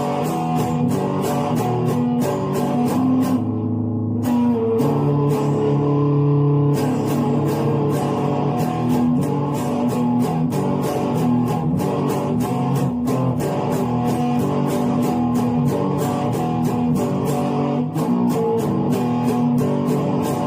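Electric guitar played in a steady run of quickly picked notes, with a few longer held notes about four to six seconds in.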